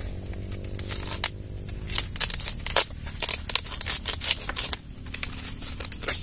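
A knife cutting a young sweet corn ear off the stalk: a quick run of crisp snaps, tearing and crackling of the green stalk and husk leaves, starting about a second in.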